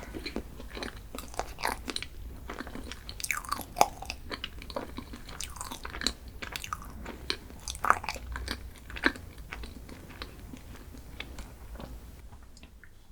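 Close-miked chewing and biting of crunchy food, with irregular sharp crackles and mouth clicks. The loudest crunches come about four and eight seconds in, and it falls quieter just before the end.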